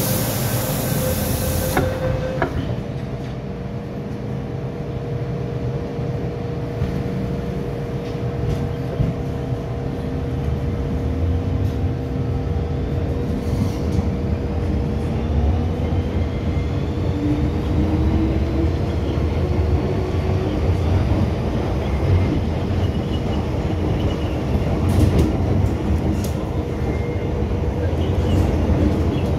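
MTR M-Train electric multiple unit running with a steady rumble of wheels on track. Partway through, a motor whine rises in pitch as the train gathers speed. A short hiss comes at the very start.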